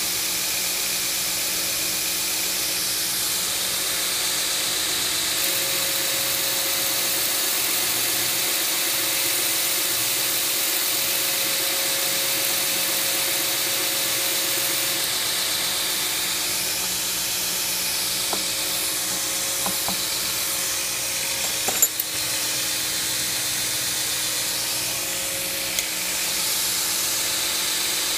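A 2x72 belt grinder running a ceramic belt over a 4-inch contact wheel, with the steel razor blank held against the wheel: a steady grinding hiss over the motor's hum. A few short clicks sound late on.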